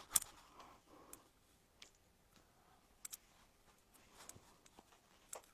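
Faint rustling of fabric and a few scattered short clicks as a pair of jeans is pulled on.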